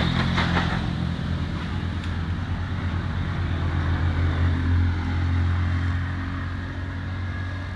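An engine running steadily with a low hum, a little louder around the middle and easing off near the end.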